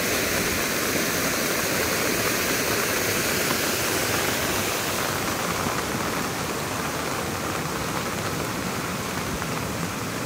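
Muddy water rushing steadily along a concrete irrigation channel.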